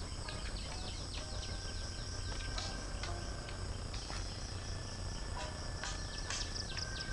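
Outdoor insect chorus: a steady high-pitched drone with many short, quick falling chirps over it. A low rumble runs underneath.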